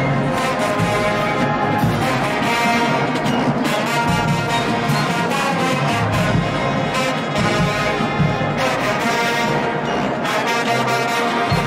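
Show-style marching band brass section playing loudly without a break, with trombones prominent.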